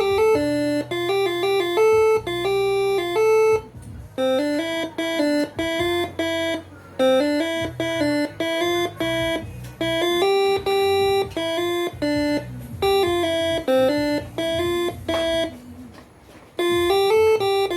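Basuri telolet air horn, driven by a Moreno MS2 tune module, playing a melody in stepped notes, with short pauses between phrases.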